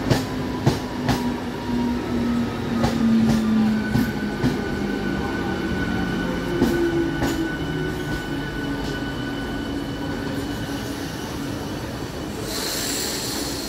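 Electric multiple-unit local train slowing into a station. Its wheels clack over rail joints at irregular intervals, and a whine falls in pitch as it slows, with a thin high squeal over it. A hiss starts near the end as the train comes almost to a stop.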